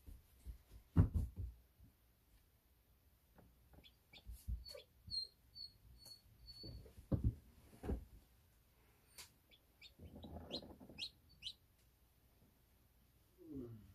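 Newly hatched chicks peeping, with short high peeps including a quick run of five about five seconds in, among soft knocks and a brief scuffle of the chicks moving against eggshells and the incubator tray.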